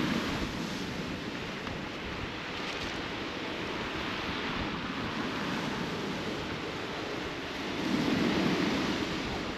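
Sea surf breaking on a shingle beach, a steady rushing hiss, with wind blowing across the microphone. It swells louder about eight seconds in.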